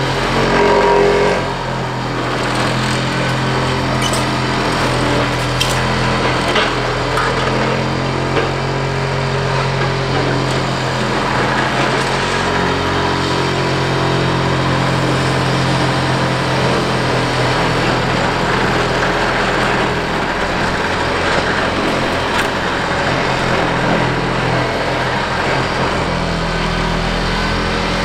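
Liebherr 946 hydraulic excavator's diesel engine running steadily under load while demolishing a building, with scattered sharp cracks and crunches of broken building material. A brief louder pitched sound comes about a second in.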